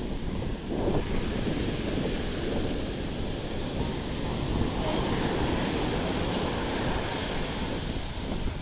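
Sea surf washing onto the beach, a steady churning rush, with wind buffeting the microphone.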